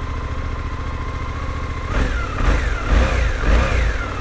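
Suzuki V-Strom 800 DE's 776 cc parallel-twin engine idling steadily in neutral, then revved with three quick throttle blips from about two seconds in before settling back to idle.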